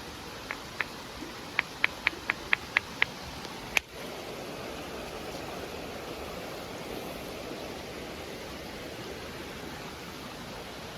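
A quick series of sharp clicks, about ten in the first three seconds: a hammerstone knocking against quartzite. After that, a creek runs steadily.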